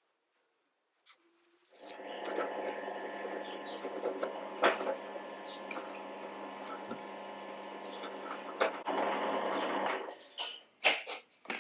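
Power drill running steadily for about eight seconds while drilling a blind hole that will be tapped, then stopping, followed by a few light clicks and knocks.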